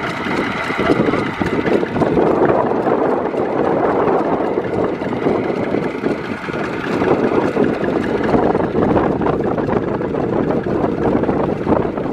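Two-wheel tractor's single-cylinder diesel engine running steadily, mixed with wind buffeting the microphone.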